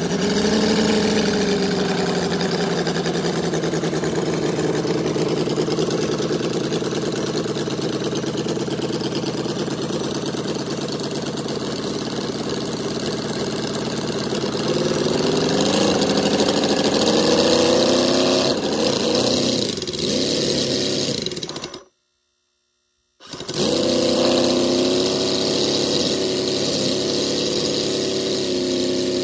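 Hand-built 1/3-scale Ford 289 HiPo model V8 (8.5 cubic inches, running on pump gasoline) running on a test stand. It speeds up briefly near the start, runs steadily, then revs up a little past the middle of the clip and drops back. After a sudden break of about a second, it runs steadily again.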